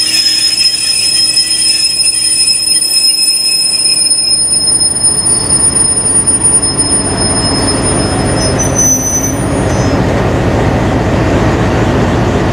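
Train wheels squealing on the rails: several steady high-pitched tones that fade away over the first ten seconds. A low running rumble from the train, hauled by a CP class 1900 diesel locomotive, grows from about four seconds in.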